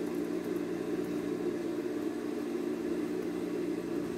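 Steady mechanical hum holding several fixed low pitches, unchanging throughout.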